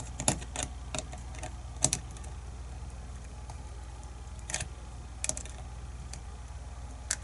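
Scattered sharp metallic clicks and clacks as a picked lock cylinder and its tools are handled, several in quick succession in the first two seconds, then a few more spaced out, over a steady low hum.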